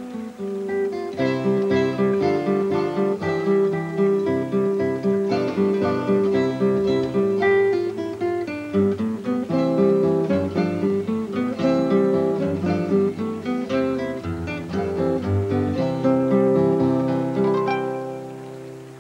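Background music: acoustic guitar playing a quick run of plucked notes, fading out near the end.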